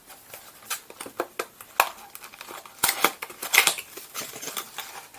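Small plastic toy parts and their packaging being handled by hand: an irregular run of clicks, taps and rustles, loudest a little past the middle.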